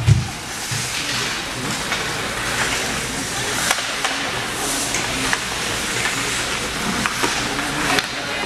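Ice rink game ambience: a steady hiss of skates on the ice, with scattered sharp clacks of sticks and puck. A low thump comes right at the start.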